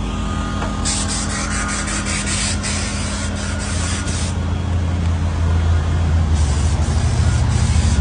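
Wind rumbling on the microphone, heavier in the second half. Bursts of rustling hiss from about one second in to about four seconds, and again near the end.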